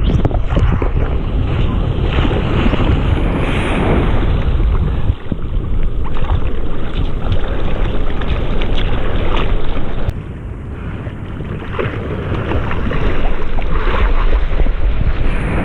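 Ocean water sloshing and splashing around a head-mounted GoPro Hero5 in the surf, with wind buffeting the camera's microphone. It eases for a couple of seconds about ten seconds in, then builds again.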